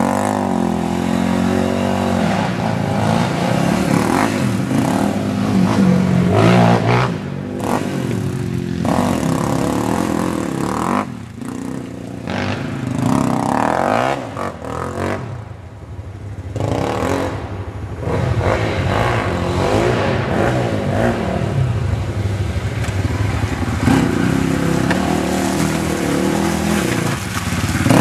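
Sport quad (ATV) engine revving up and down as it rides through mud and climbs a trail, the sound falling away twice in the middle before rising again.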